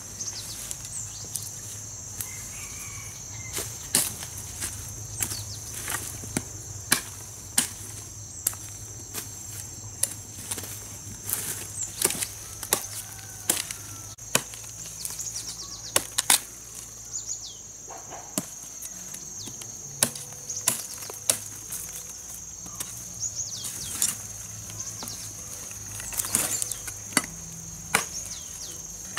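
Irregular sharp chopping strikes of a blade, roughly one to two a second, over a steady high-pitched insect drone.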